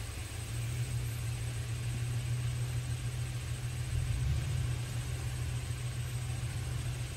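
Off-road 4x4's engine running at low revs with a steady rumble as it crawls slowly up a muddy track, swelling slightly about four seconds in.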